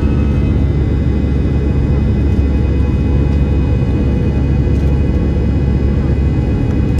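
Airbus A320-214's CFM56-5B engines running steadily, heard from inside the passenger cabin: a deep, even rumble with a whine of several steady tones above it.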